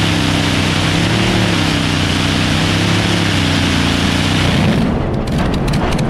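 Allison V-12 aircraft engine of a modified pulling tractor running hard under load, a loud, steady drone. About four and a half seconds in the throttle comes off and the engine drops to a lower, rougher run with irregular pops.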